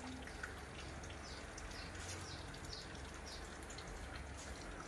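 Faint high-pitched chirps, each a short falling note, repeated about twice a second for a few seconds over a low steady hum.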